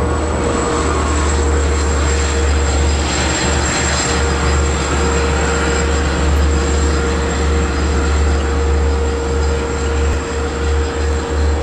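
A Long Island Rail Road diesel locomotive at the rear of a departing bi-level passenger train, running loud and steady with a deep rumble and a constant high whine as it pulls away, easing a little near the end.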